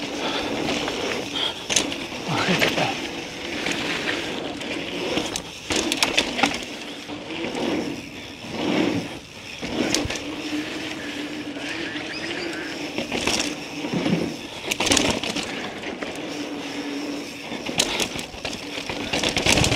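Mountain bike ridden fast on a loose dirt trail: knobby tyres rolling and crunching over dirt, with the bike clattering in sharp knocks over bumps and landings.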